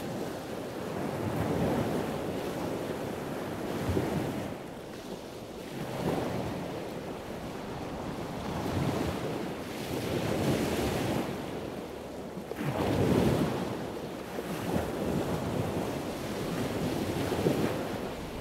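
Sea waves washing and surging in slow swells every few seconds, with wind rumbling on the microphone.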